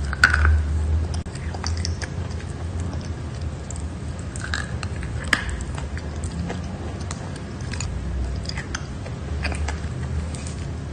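A person biting into a chunk of chalk and chewing it, with crisp crunches and small crackles; the loudest bite comes just after the start.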